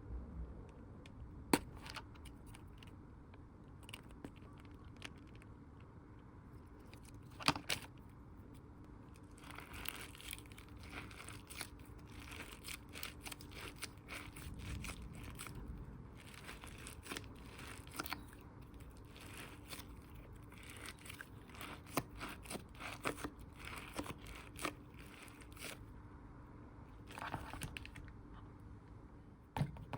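Hands squeezing and handling squishy toys, giving irregular crinkling, crackling sounds with a few sharper clicks. The sounds are sparse at first and come thick and fast from about ten seconds in until near the end.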